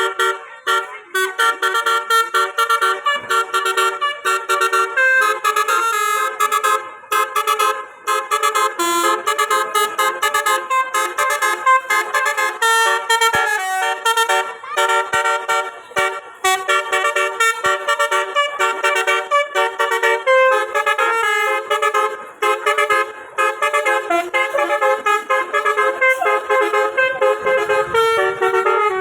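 Indonesian bus telolet horn, a Basuri multi-trumpet horn, playing a fast melody of quickly changing notes, with a few brief pauses.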